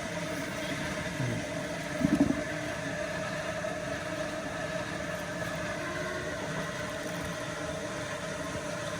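A steady motor hum with a constant pitch, and a brief louder low sound about two seconds in.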